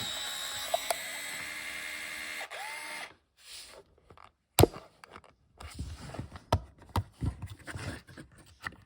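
Pentax IQZoom 130M 35mm point-and-shoot camera's built-in motor whirring steadily as it rewinds the film, stopping about three seconds in when the roll is fully rewound. Scattered sharp clicks and knocks from handling the camera follow.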